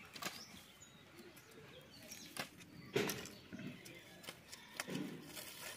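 A long-bladed chopper hacking dry sticks into firewood: several sharp chops at uneven intervals, the loudest about three seconds in. Birds call in the background, among them a dove cooing.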